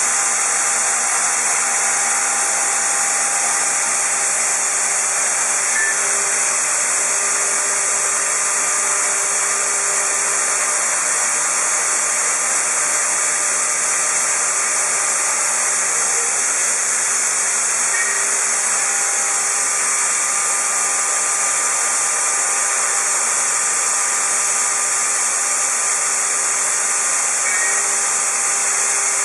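Shoda CNC router running steadily as it trims a pressure-formed plastic keyboard cover: a loud, even high hiss from the spindle and cutting, with faint whining tones that come and go several times.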